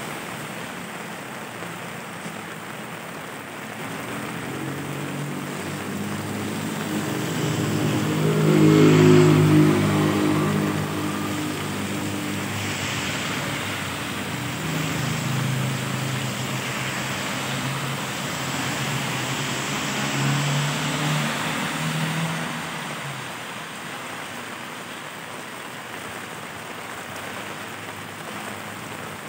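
Steady rain with vehicles passing on a wet road, their engines rising and fading with tyre hiss. The loudest pass comes about nine seconds in, with smaller ones around fifteen and twenty-one seconds.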